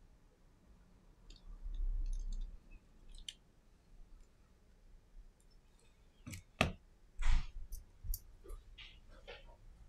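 Small clicks and taps from handling the tiny parts and display assembly of an iPhone SE on a silicone repair mat, with a cluster of sharper clicks about six to seven seconds in. A low dull bump of handling noise comes about two seconds in.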